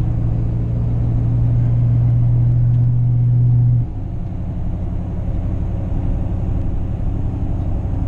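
Ford 6.7 L Powerstroke V8 turbo-diesel pulling the truck along, heard from inside the cab as a steady low drone that grows louder. About four seconds in it drops suddenly to a lower pitch and a quieter level, then carries on steadily with road noise.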